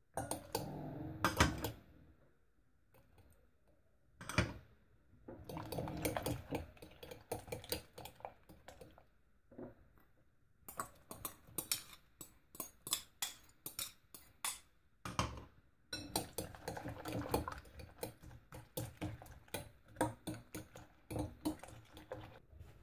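Metal fork clinking and scraping against a glass mixing bowl as chopped vegetables are stirred into raw beaten eggs, with quick runs of taps where the mixture is beaten. Small glass bowls knock against the rim as the vegetables are scraped in.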